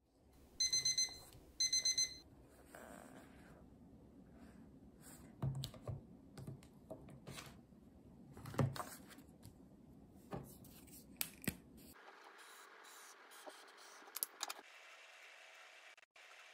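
Electronic alarm beeping: two quick bursts of rapid, high beeps about a second apart. These are followed by scattered soft taps and clicks of stationery and a clear plastic sheet being handled on a wooden tabletop.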